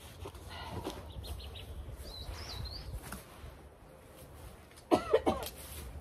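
A person coughing twice in quick succession, about five seconds in, against low rustling handling noise. A brief high chirp comes earlier.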